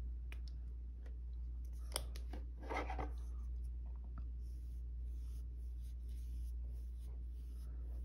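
Soft scratchy rubbing of a flat paintbrush spreading glaze over a painted base, with a sharp click about two seconds in and a brief rustle just after, over a low steady hum.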